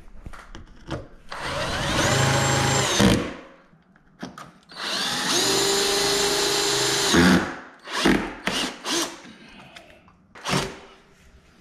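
Cordless drill driving screws in two runs of about two and three seconds. Each run has a motor whine that rises as it spins up, holds steady, then stops. A few short knocks follow.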